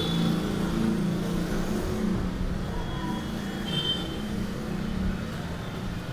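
Street traffic in the rain: motor vehicle engines running close by over a steady hiss, with a brief faint high tone about four seconds in.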